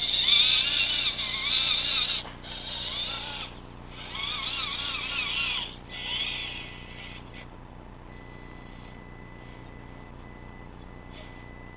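An RC rock crawler's electric motor and gear drive whining in several bursts whose pitch rises and falls with the throttle, stopping about seven seconds in.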